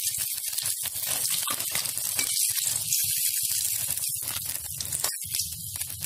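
Hot oil sizzling and crackling around besan-battered eggplant slices (baingan pakoras) deep-frying in a kadhai. There is a steady low hum underneath.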